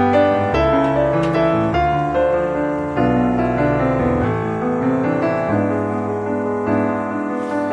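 Background music: a piano playing a slow melody over held chords.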